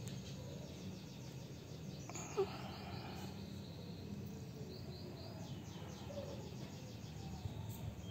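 Outdoor ambience: a low steady hum under runs of quick, high repeated chirps, with one short louder sound about two and a half seconds in.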